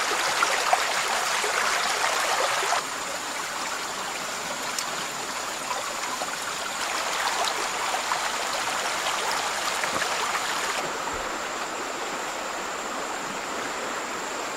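Stream water rushing and trickling over rocks in a steady wash, louder for the first few seconds and dropping suddenly about three seconds in. A thin, steady high tone runs under it.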